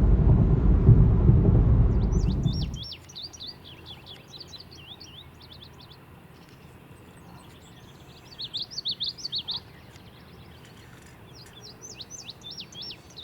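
A loud low rumble on the microphone for the first few seconds, then songbirds singing in short high chirping notes, with a louder fast run of notes about eight seconds in.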